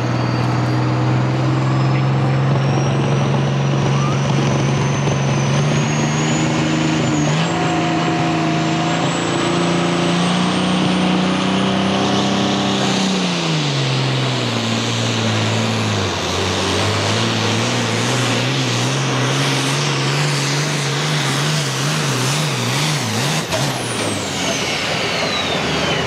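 Turbocharged International hot farm tractor's diesel engine at full throttle pulling a sled: its note climbs steadily, sags about halfway through as the engine is pulled down, then surges back with a rapid wavering before being shut down near the end. A high turbo whistle rises over the first half and whines down at the close.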